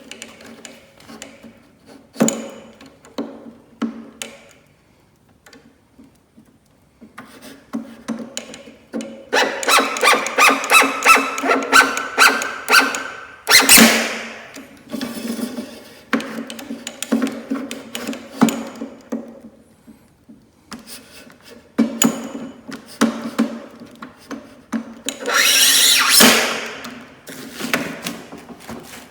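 Plexiglass scoring knife drawn over and over across an acrylic sheet: rapid scratching strokes with a faint squealing edge, a loud sharp scrape about halfway through, and another loud scrape near the end, amid scattered knocks of the sheet and tools.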